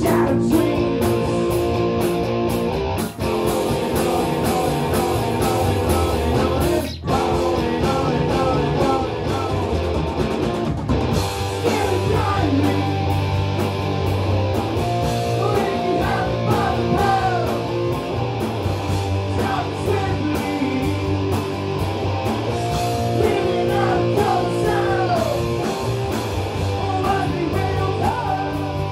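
Live rock band playing: electric guitar, bass guitar and drum kit, with sung vocals.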